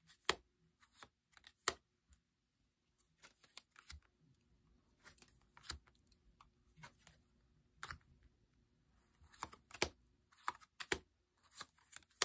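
Tarot cards being handled: scattered light clicks and taps at irregular intervals.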